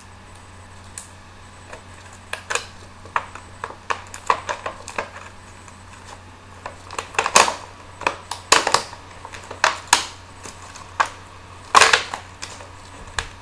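Headphone packaging being worked open by hand: irregular sharp clicks, snaps and crackles that come thicker and louder in the second half.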